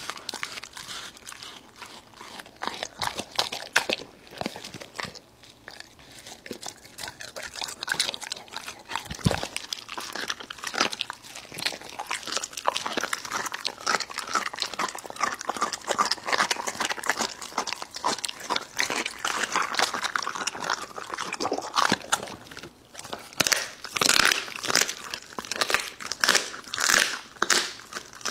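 Golden retriever biting and chewing raw food, with irregular wet crunches and chomps; the crunching grows louder and denser near the end.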